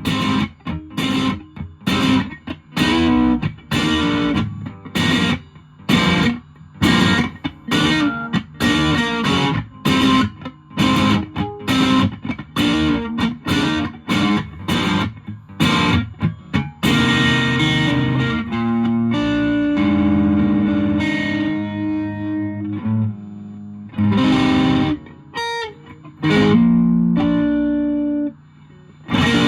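Electric guitar (Fender Japan Jazzmaster) through a 1985 Japanese Boss DS-1 distortion pedal into an ELK FSB-45 amp, recorded straight on a smartphone. It plays short, choppy distorted chords at about two a second, then rings out longer held chords from a little past halfway, and ends with short stabs again.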